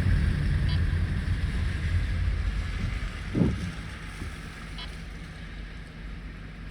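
Car cabin road and engine rumble fading away as the car slows. A run of quick, evenly spaced ticks stops in the first second, and there is a short thump about three and a half seconds in.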